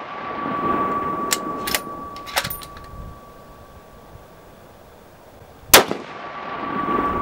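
.308 Winchester bolt-action rifle firing one sharp, loud shot about three-quarters of the way in, followed by a rolling echo and a steady high ringing tone. Before it, the echo and ringing of the previous shot fade out, with three sharp clicks in the first few seconds.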